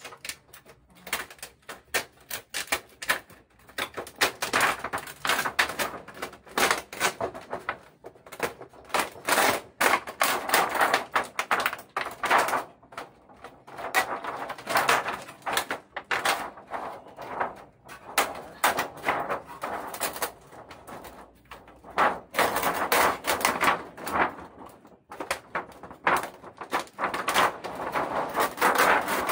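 Thin white plastic reflector sheet of an LED TV backlight crinkling and rustling as it is handled and lifted off the LED strips, with quick irregular crackles throughout.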